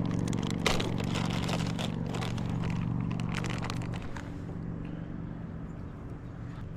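An engine running steadily, with clicking and crackling over it, the hum fading after about four seconds.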